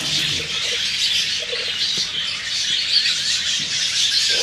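Birds chirping and squawking in a continuous high-pitched chorus.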